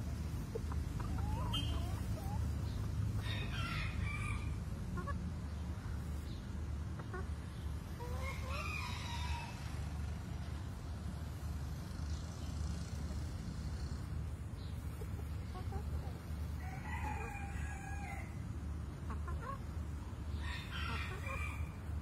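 A flock of chickens clucking, with a rooster crowing four times, each crow lasting a second or two, a few seconds apart. A steady low rumble runs underneath.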